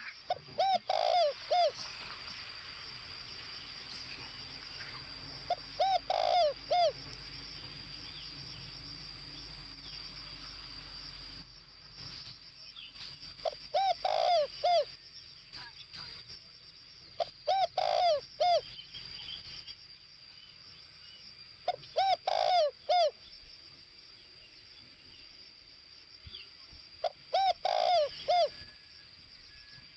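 Spotted dove cooing: six short phrases of three to four low notes each, a few seconds apart. This is a caged decoy dove's call, used to lure wild doves.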